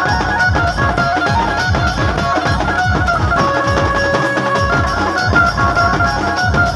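Chhattisgarhi dhumal band music: a melody of stepped, held notes played over a fast run of electronic drum-pad hits whose low thuds each drop in pitch, several a second.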